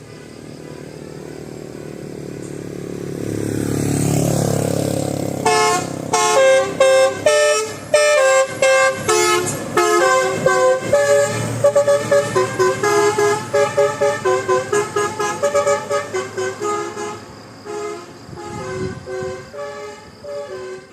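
A vehicle approaching, then a telolet multi-tone musical horn playing a melody of short, rapid notes. The melody starts about five seconds in and quickens as it goes.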